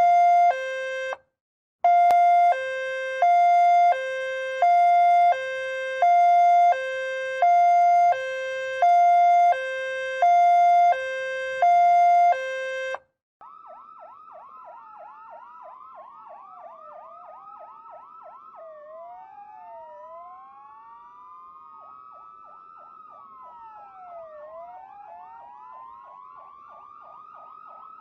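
Ambulance siren in two-tone hi-lo mode, alternating between a high and a low pitch, each held just under a second, with a brief break about a second in. About thirteen seconds in it cuts to a quieter electronic siren: fast repeated yelping sweeps overlapped by slower rising and falling wails.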